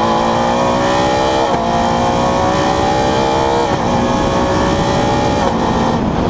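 Renault Clio R3 Maxi rally car's naturally aspirated four-cylinder engine at full throttle, heard onboard. The pitch climbs steadily, breaks sharply for quick upshifts about one and a half seconds in and again a little before four seconds, then steps down shortly before the end. Tyre and road rumble runs underneath.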